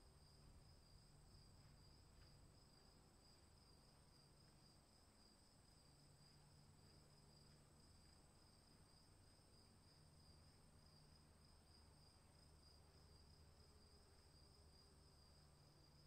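Near silence with a faint, steady, high-pitched insect trill running without a break, in an outdoor storm-ambience recording.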